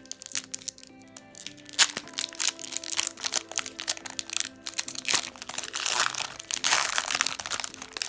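Foil Pokémon card booster pack wrapper crinkling as it is handled and torn open, loudest in its second half, with a sharp crack about two seconds in. Background music plays underneath.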